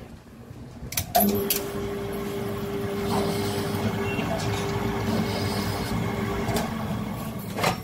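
Metal lathe starting with a click about a second in, then running steadily with its chuck spinning, a constant mechanical hum with a steady tone.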